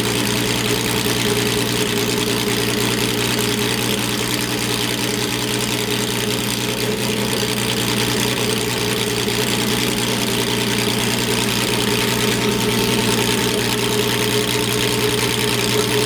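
Ferrari P3/4's 4.0-litre V12 racing engine idling steadily at an even pitch.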